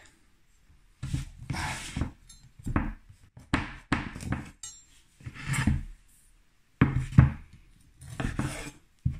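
Knife sawing through a firm, dried smoked sausage on a wooden cutting board: a series of short sawing strokes, several starting with a sharp knock of the blade on the board.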